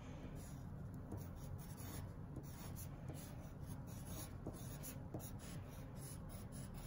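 Pen scratching faintly on paper in short, irregular strokes as outline block letters are drawn.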